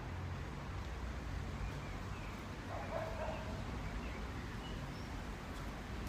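A brief animal call about halfway through, over a low steady hum.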